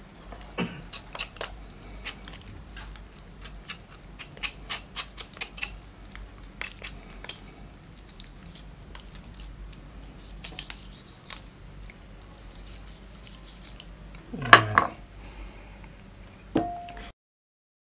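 Kitchen knife cutting and scraping along raw chicken bones, with many small wet ticks and clicks as the flesh is pulled from the carcass. Near the end come two louder knocks on the wooden cutting board, the second with a brief ring.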